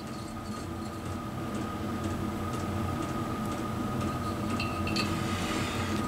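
Quiet workshop room tone with a steady faint high whine, and a few light metallic clicks a little before the end as a telescopic bore gauge is handled inside a cylinder bore.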